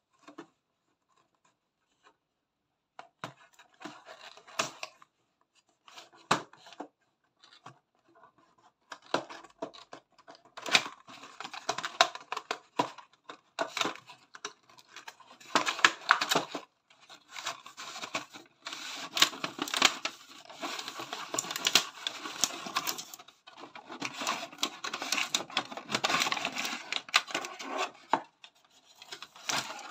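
Cardboard box of a 1:87 scale model bus being opened and its plastic insert slid out: scraping, rubbing and rustling of cardboard and plastic with scattered clicks. It comes on and off at first and is busiest from about nine seconds in until near the end.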